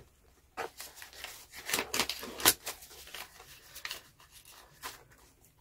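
Crinkling and rustling of a clear plastic binder pocket and paper banknotes being handled and slipped into it, a string of short scrapes and taps, loudest about two and a half seconds in.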